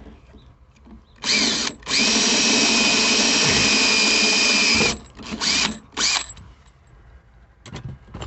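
Electric drill with a larger bit enlarging a pilot hole for a pop rivet: a short burst about a second in, then a steady run of about three seconds, then two more short bursts and a brief final one. Each burst begins with a rising whine as the motor spins up.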